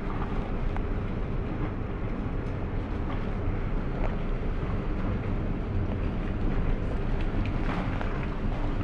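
Boat engine running in a steady drone, mixed with wind and water noise.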